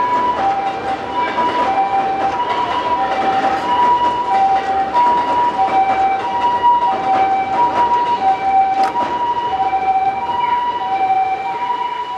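Ambulance siren sounding a two-tone pee-paw: a higher and a lower note alternate evenly, each held about two-thirds of a second, over a steady background hiss.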